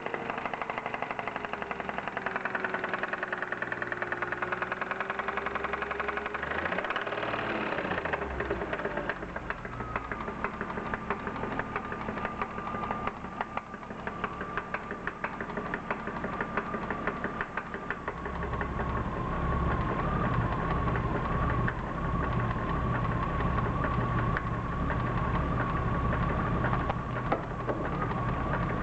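BMW M52B25 inline-six running with a rapid, even knocking, with a steady whine in the second half and heavier low pulsing from about two-thirds in. The knock does not change as each ignition coil is unplugged in turn, which leads the owner to doubt a spun rod bearing.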